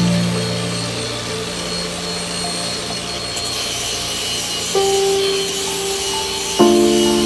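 Background music of long held notes that change pitch about five seconds in and again near the end, over the steady rasping hiss of a handheld power tool sanding cardboard.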